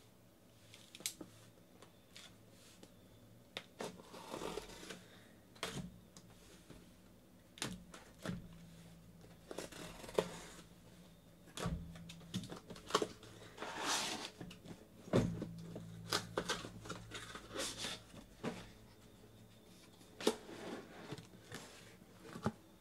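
Cardboard case being opened and unpacked by hand: scraping and tearing of the cardboard, with sharp knocks as the hobby card boxes inside are taken out and stacked on a table.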